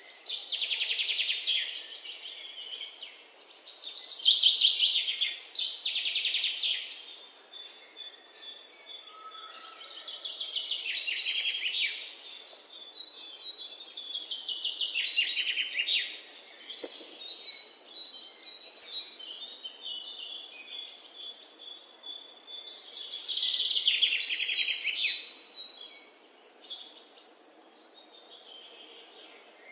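A songbird singing phrases of rapid high trills and steady whistles, one every few seconds, with the loudest phrases about four seconds in and again near the end.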